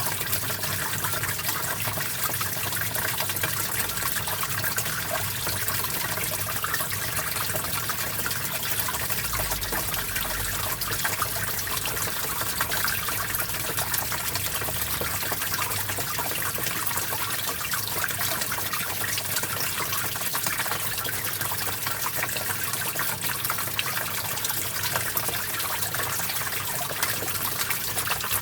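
Small stream of water flowing and splashing over rocks, a steady babble.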